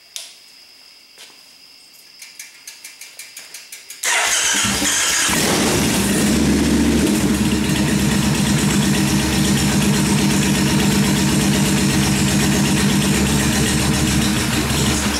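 A click, then a freshly rebuilt Kawasaki 1600 V-twin engine cranking on the starter for under two seconds before it catches about four seconds in and runs steadily.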